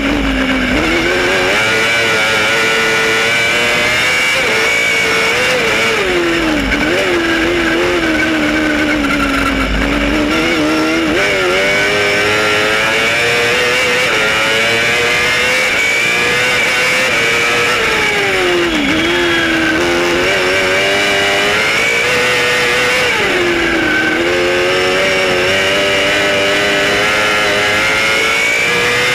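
Cross kart's engine heard onboard at racing speed, its pitch climbing under throttle and dropping sharply about four times as it comes off the throttle for corners. Wind rumbles on the microphone at times.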